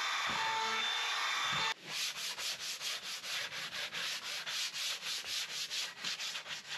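A cordless edge router whines steadily as it rounds over the edges of a hardwood board, stopping abruptly about a second and a half in. Then sandpaper is rubbed by hand over the board's flat face in quick, even back-and-forth strokes, about five a second.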